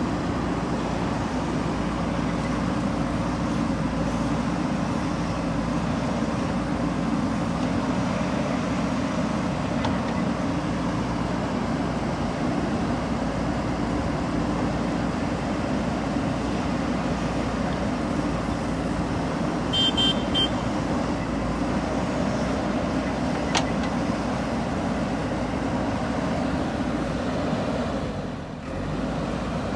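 JCB 3DX backhoe loader's diesel engine running steadily under working load, with a couple of brief metallic clinks partway through.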